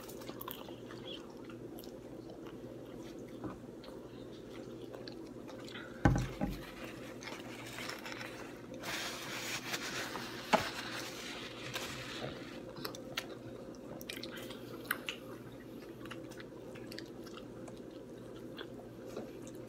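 A person chewing and biting pizza, with scattered small clicks and smacks. A loud low thump comes about six seconds in, and a sharp click a few seconds later.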